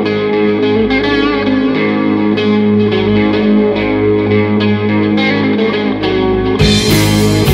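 Music: an electric guitar riff played through effects and distortion over sustained notes. Near the end the music turns brighter and fuller, with sharp regular hits.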